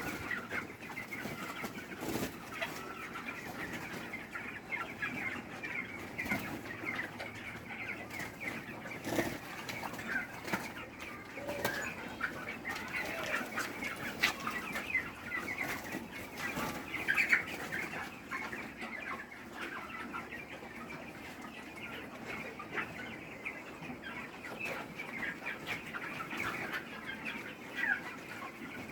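A flock of poultry-farm chickens chirping and clucking continuously, many short calls overlapping, with occasional sharp knocks.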